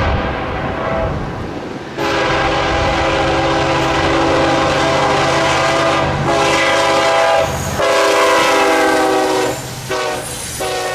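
Diesel freight locomotive horn sounding a series of loud blasts, the longest about four seconds, with short breaks between them, over the low rumble and wheel noise of the train.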